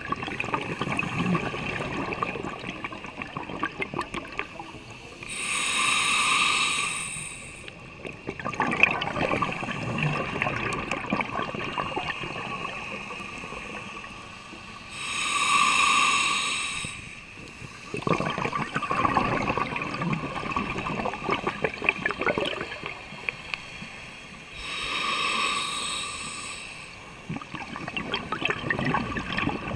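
A scuba diver's regulator breathing underwater: three hissing inhalations, about 6, 16 and 25 seconds in, each followed by several seconds of exhaled bubbles gurgling and crackling.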